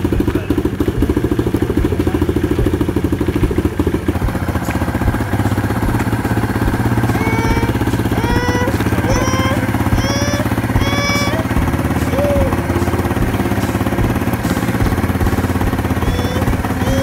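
Kawasaki Bayou KLF300's single-cylinder four-stroke engine running at low revs, the ATV idling and moving slowly. About halfway through, a dog yips several times in short high calls.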